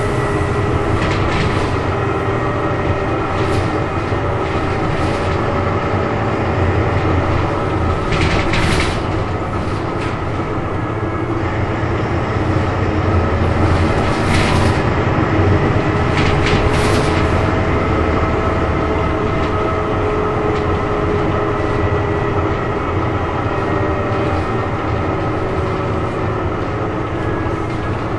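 Renault RVI PR 100.2 city bus heard from inside while driving: the diesel engine and driveline running with a steady low drone and a whine that drifts slowly in pitch with speed, over rattling of the body and fittings. Several short hisses break in, the loudest about eight and a half seconds in and again around fourteen and seventeen seconds.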